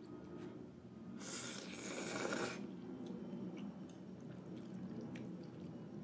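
Instant ramen noodles slurped up off chopsticks: one noisy slurp lasting about a second and a half, starting about a second in, followed by faint scattered clicks.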